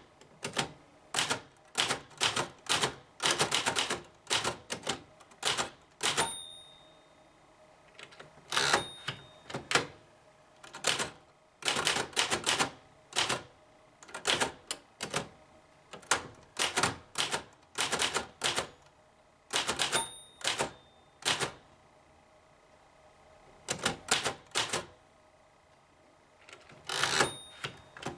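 Typing on a 1930 Remington Portable No. 3 typewriter: bursts of sharp type-bar clacks with short pauses between words and lines. The margin bell gives a short ring four times.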